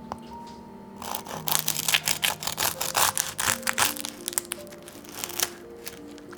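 Crisp crackling and crunching, irregular and dense, starting about a second in and lasting about four seconds, over soft background music.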